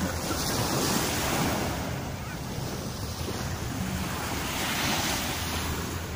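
Small sea waves washing onto a sandy beach, the surf hiss swelling twice, with wind buffeting the microphone.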